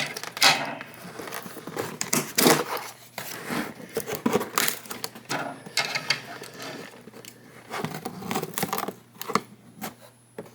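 Plastic packaging and tape being cut and pulled apart by hand: an irregular run of snips, clicks and crinkles.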